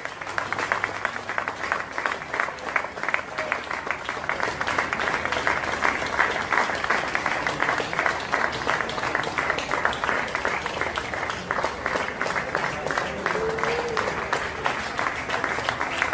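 A crowd applauding steadily: dense, rapid hand claps.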